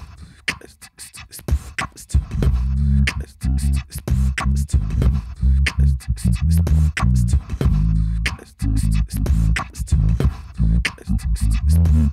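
Beatboxing into a handheld microphone, layered on a Boss RC-505 loop station: sharp click and snare-like hits at first, joined about two seconds in by a deep pulsing bass line that steps in pitch, with the percussion carrying on over it.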